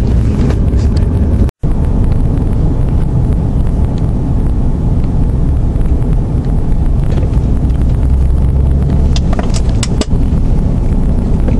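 Road and engine noise heard inside a moving car on a highway: a steady low rumble that drops out for an instant about a second and a half in.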